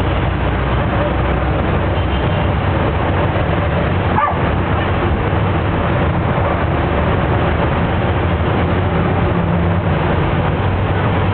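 Steady drone of a jeepney's engine and road noise, heard on board while driving. About four seconds in, a short high-pitched cry cuts through briefly.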